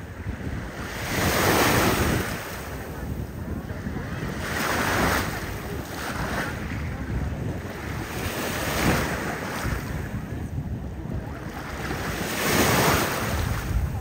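Small waves washing in at the shoreline, surging about four times, roughly every four seconds, with wind buffeting the microphone.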